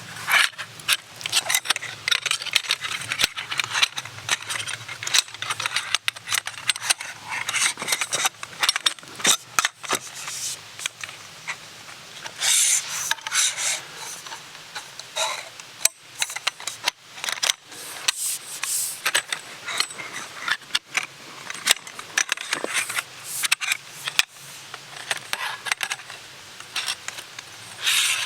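Irregular rustling and scraping with many sharp clicks and knocks, as of hands working with camp gear or wood.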